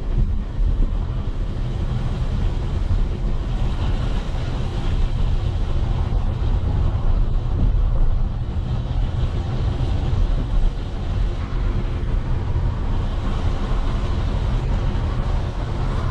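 Vehicle travelling along a road: a steady low engine and road rumble, with wind buffeting the microphone.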